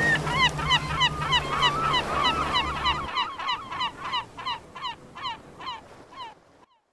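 Gulls calling in a rapid series of short, downward-slurred cries, about three a second, fading away and stopping shortly before the end. A low steady drone underneath cuts off about three seconds in.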